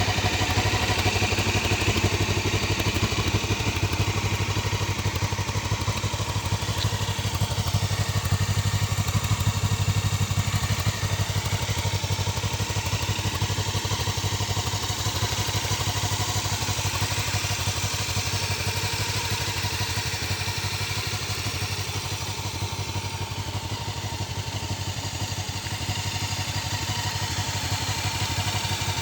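Honda CBF500's 499 cc parallel-twin engine on its stock exhaust, running steadily at idle with an even, pulsing exhaust beat.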